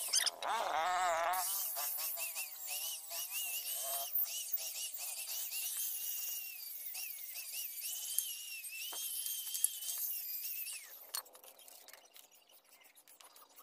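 Angle grinder with a flap disc grinding the edge of a steel cleaver blade, a high whine that wavers in pitch as the disc bears on the steel, stopping about eleven seconds in.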